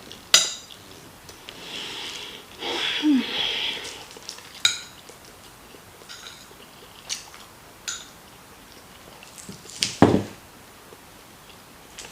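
Cutlery clinking and scraping against a plate during a meal: about five sharp clicks spread through, the loudest near the start and about ten seconds in, with a longer scraping stretch from about two to four seconds in.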